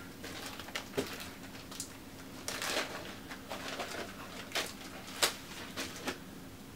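Paper rustling and crinkling as sheets of documentation and a rolled poster are handled, in a series of short bursts, the sharpest about five seconds in, over a faint steady hum.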